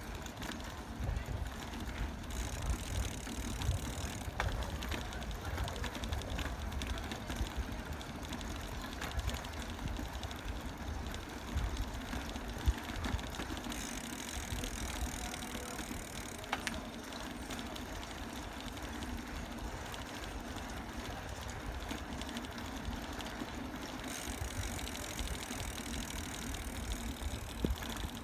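Riding a bicycle with the phone microphone in the airflow: wind buffeting the microphone as an uneven low rumble, over the noise of the tyres rolling on the pavement, with a few short knocks and rattles from the bike.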